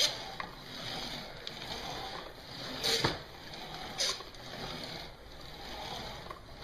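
Wheels of a Shark Navigator upright vacuum, switched off, rolling back and forth on the floor: a low rolling rumble with a few sharp clicks and knocks, the loudest about three and four seconds in. Pulled backwards to show the wheel squeak that the owner hears mostly with the motor on, it gives no clear squeak here.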